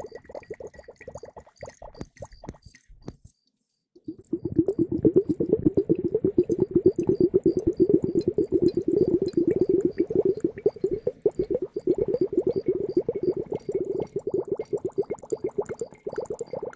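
Close-miked ASMR trigger sound: fingers rapidly crackling, squishing and tapping on a round translucent prop, a dense, fast run of small strokes. It stops for about a second around three seconds in, then resumes.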